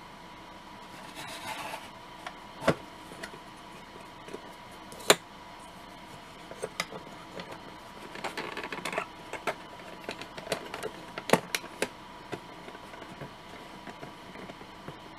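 Small plastic model-kit parts being handled and fitted onto a plastic base, with a few sharp clicks of plastic knocking on plastic and soft scraping and ticking in between. A faint steady tone hums underneath.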